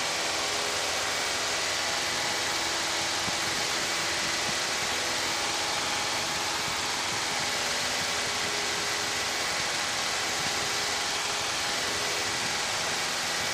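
Steady drone of a Piper PA-28-151 Cherokee's four-cylinder Lycoming engine and propeller in flight, heard inside the cockpit: an even rushing noise with a few steady tones running through it.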